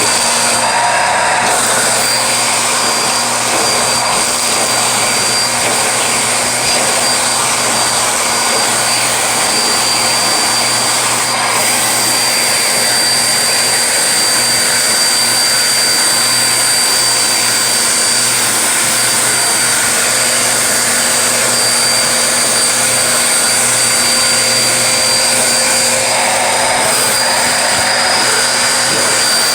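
Vacuum cleaner running steadily, its motor giving a constant high whine over the rush of suction.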